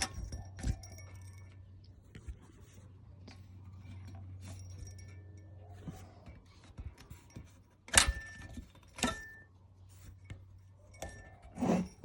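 Old turbocharger's shaft being turned and wiggled by hand, giving a faint grinding with light metal clinks; the shaft has play and grinds, a sign of a worn turbo. Sharp metallic clicks stand out about eight and nine seconds in and again near the end, over a steady low hum.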